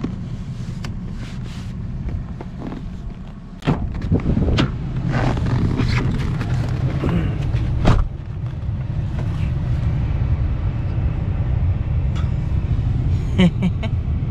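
Car driving, a steady low rumble of engine and road noise with scattered knocks and clicks, getting louder a little under four seconds in.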